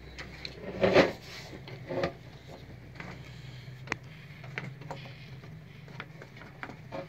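Hands working a hot glue gun and pressing a small digital voltmeter into a sheet-metal case: a knock about a second in, another about a second later, then scattered light clicks, over a low steady hum.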